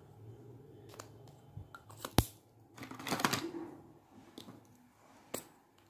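Lipstick tubes and caps clicking and knocking as they are handled, with a few separate sharp clicks, the loudest about two seconds in, and a brief rustle about three seconds in.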